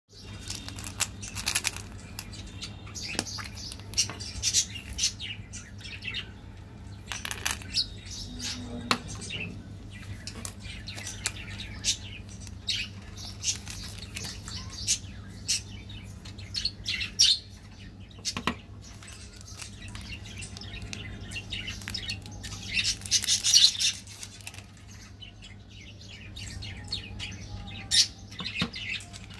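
Plastic candy wrappers crinkling and tearing as chocolate bars are unwrapped and handled, in many short irregular crackles with a denser burst about three-quarters of the way through. A steady low hum runs underneath.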